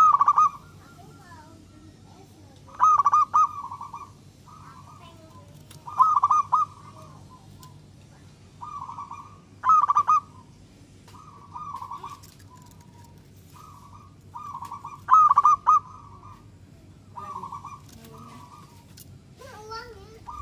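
Zebra dove singing: loud, rapid cooing phrases repeated a few seconds apart, five in all, with softer, shorter coos in between.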